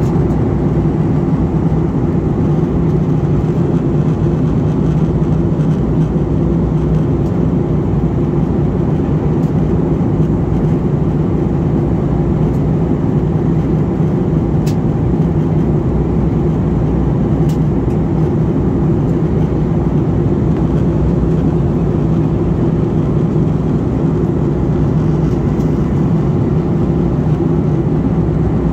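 Steady cabin noise of a jet airliner in flight, heard from inside the cabin: engine and airflow drone with a low hum underneath.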